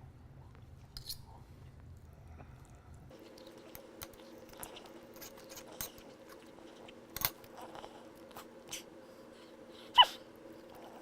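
Knife and fork clicking and scraping on a plate as fat is cut off a steak, with a sharper ringing clink near the end. A steady hum comes in about three seconds in.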